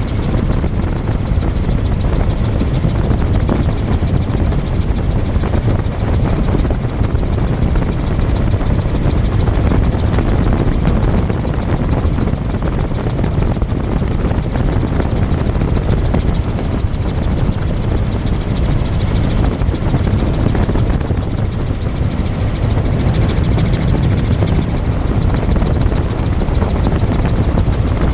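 Helicopter in flight, heard from on board: a steady, loud drone of rotor and engine with a rapid, even rotor beat.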